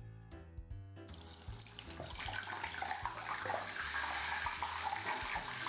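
Breaded, meat-stuffed jalapeño dropped into hot oil in a saucepan: the oil starts to sizzle about a second in and grows louder as it fries, over soft background music.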